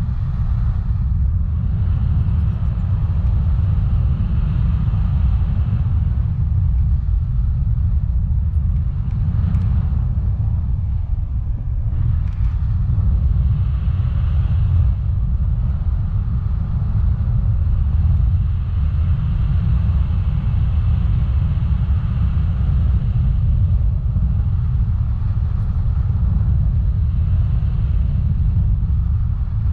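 Wind buffeting the microphone of a camera carried along on a tandem paraglider in flight: a loud, steady low rumble.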